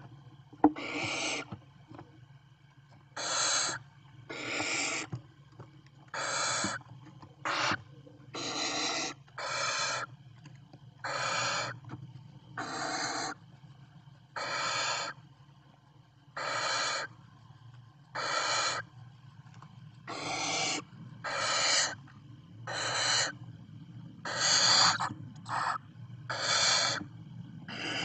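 Barn owl chicks giving their rasping, hissing food-begging 'snore' call, one hiss of about half a second every second or two, over a steady low hum. There is a single sharp click just under a second in.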